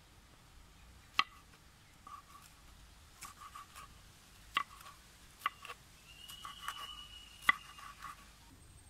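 Kitchen knife slicing green chilies on a wooden cutting board: irregular soft cutting taps, with four sharper knocks of the blade on the board.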